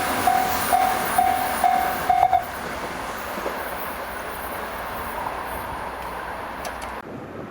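Japanese level-crossing alarm ringing its electronic bell about twice a second, stopping about two and a half seconds in, over the fading rumble of a JR Hanwa Line train that has just passed.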